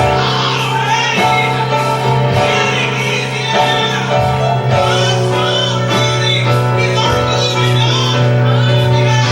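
Gospel church choir singing with band accompaniment: voices over a held low bass note and a drum beat.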